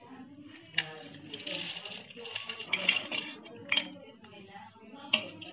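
Stainless steel plate clinking and scraping against the rim of a steel bowl as chopped cashews, almonds and other dry fruit slide off it into orange juice, with a few sharp clinks among the rustle of the nuts.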